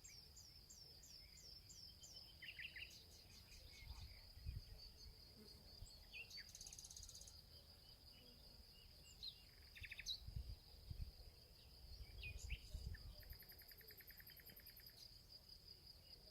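Faint woodland birdsong: several small birds calling, starting with a run of about ten quick high notes, with short trills about ten seconds in and near the end, over a steady high-pitched whine. A few soft low rumbles come and go.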